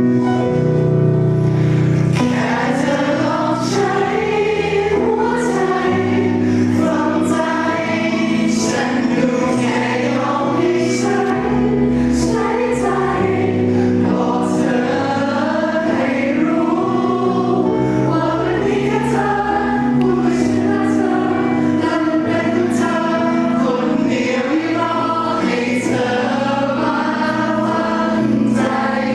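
A song performed live: several voices singing together over steady backing music.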